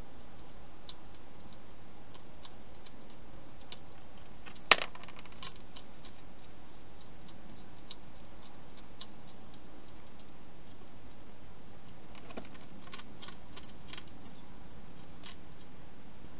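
Hedgehog feeding inside a plastic feeding box: irregular small clicks and crunches as it eats, with one sharp louder knock about five seconds in and a quick run of clicks near the end, over a steady hiss.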